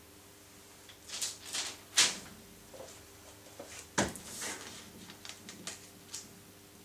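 Paper and ribbon being handled on a worktable: short rustles and crinkles with a few sharp taps, the loudest about two and four seconds in.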